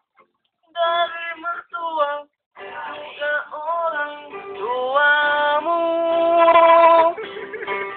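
A voice singing a wordless melodic passage: a few short sung notes, then long held notes that slide between pitches, with vibrato on a loud sustained note near the end.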